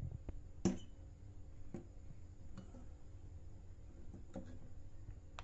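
Scattered clicks and knocks of a plastic compression-driver tweeter and its horn being handled and twisted together by hand, the loudest less than a second in, over a faint low hum.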